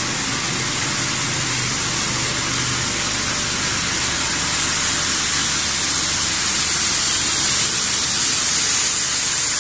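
Running plastic granulation line machinery: a loud, steady hiss with a faint low hum under it.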